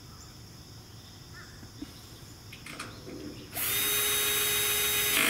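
Cordless drill driving a screw into the sheet-metal frame of a gas grill cart: a steady whine that starts about three and a half seconds in and runs for about two seconds, after a few light handling clicks.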